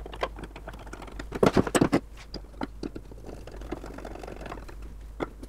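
Small metal clicks and taps as the rear handle's threaded rod, brass nut and screw are fitted and tightened on a Stanley Bailey No. 5 hand plane. A cluster of sharper clacks comes about a second and a half in, and a softer scraping follows later.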